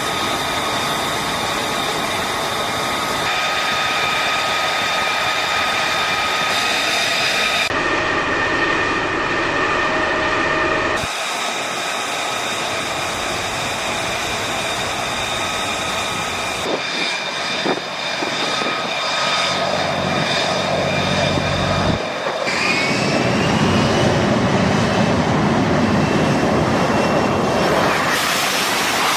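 Jet engine noise: a steady high whine with several pitched tones over a rushing roar, changing abruptly every few seconds as if cut between clips. In one stretch the whine rises in pitch.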